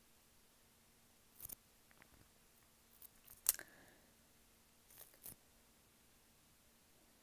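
Aluminium foil crinkling as a gloved hand moves pieces of pitha about in a foil-lined tray: three short crinkling rustles, the loudest about three and a half seconds in.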